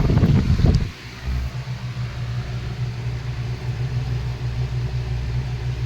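Antique Robbins & Myers 16-inch oscillating table fan running on medium speed: a steady low motor hum. A loud rumbling rush lasts through the first second before the hum settles.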